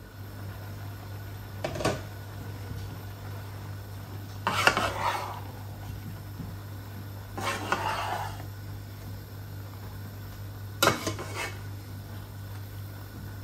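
A metal utensil scraping and knocking against a cooking pot in four short bouts a few seconds apart, over a steady low hum.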